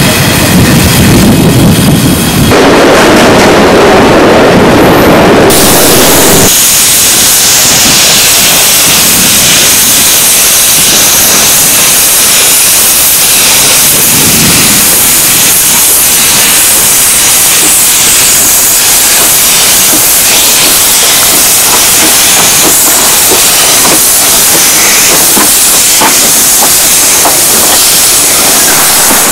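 Zillertalbahn narrow-gauge 0-6-2 tank steam locomotive getting under way with its cylinder drain cocks open, steam hissing out loudly and steadily. The first six seconds or so are a deeper, fuller rush before the sound settles into the higher, even hiss.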